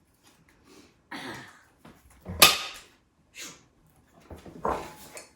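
A few short rustles and clatters of things being handled, with one sharp knock about two and a half seconds in.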